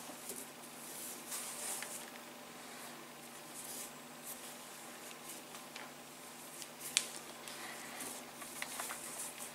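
Soft rustling and swishing of cotton cord being pulled and tied by hand into macrame knots, with scattered small clicks and one sharper click about seven seconds in. A faint steady low hum runs underneath.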